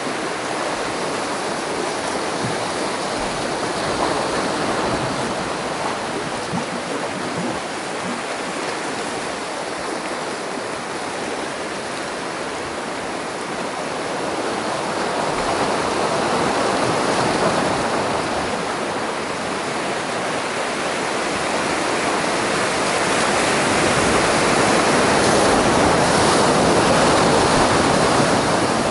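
Sea surf breaking and washing over shoreline rocks, a steady rush of water that swells louder a couple of times, most in the last few seconds.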